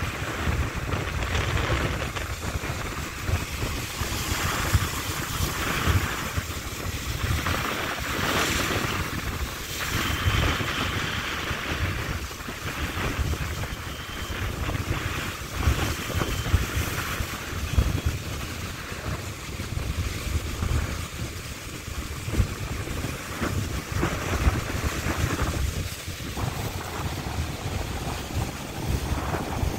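Wind buffeting the microphone in gusts, over waves breaking and washing across rocks.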